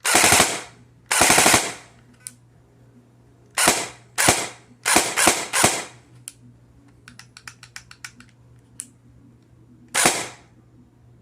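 Airsoft gun firing a series of short bursts, each about half a second long: two at the start, four in quick succession a few seconds in, and one more near the end. Between them are a run of faint rapid clicks and a few single faint clicks.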